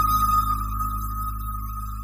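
Background music: one long held high note over a steady low drone, slowly fading.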